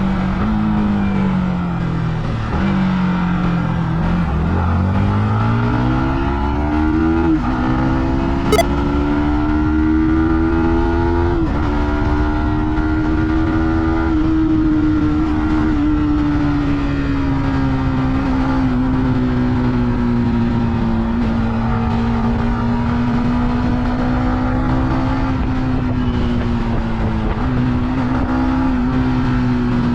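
Yamaha MT-15 V2's 155 cc single-cylinder engine and exhaust on the move: the revs drop about four seconds in, then climb through two upshifts and settle to a steady cruise, the pitch rising and falling gently. A single sharp click about eight and a half seconds in.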